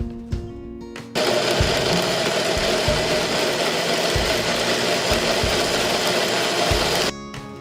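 Electric blender running and puréeing chopped lemon, garlic and ginger with water. It starts about a second in and cuts off suddenly about a second before the end, running as a loud, even whirr.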